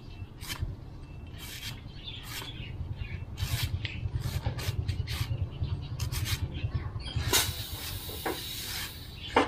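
A cleaver shaving and chopping the fibrous husk off a coconut: irregular short scraping strokes with a steady low rumble underneath, a longer hiss about seven seconds in, then a sharp chop at the very end.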